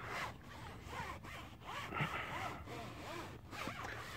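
Foam applicator pad scrubbed back and forth over a truck tire's rubber sidewall, spreading tire dressing: a soft, rasping rub repeated in quick strokes, a few a second.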